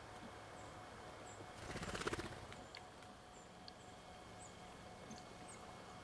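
A brief, rapid whirr of bird wings close to the microphone about two seconds in, the loudest sound here, over a faint steady outdoor hiss. Scattered faint, very short high chip notes of small birds and a few light ticks follow.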